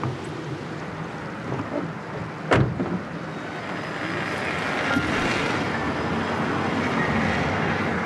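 A single sharp thump about two and a half seconds in, then a passing car, its engine and tyres on the road growing louder.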